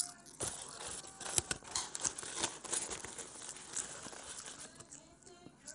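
Popcorn being handled, crinkling and rustling with many small crackles, as when a handful is grabbed from a bag.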